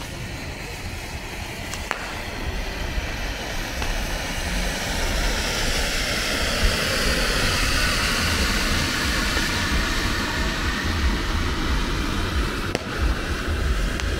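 A vehicle going by. Its noise swells through the middle and stays loud near the end, over a steady low rumble.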